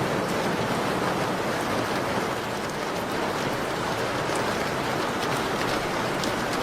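Steady rain falling: a dense, even hiss with faint sharp ticks now and then.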